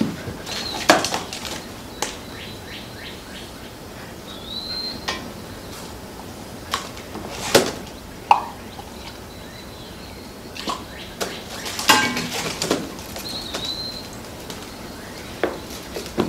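Props being handled on a stage floor: scattered knocks, clinks and a brief rattle as items are packed and a wicker picnic basket is closed, the sharpest about a second in and again around the middle. A few short high chirps, like a bird, come now and then behind them.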